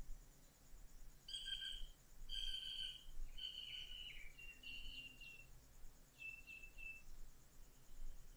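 A bird calling in the background: a string of clear repeated notes, then three short quick notes near the end, over a faint steady high insect trill.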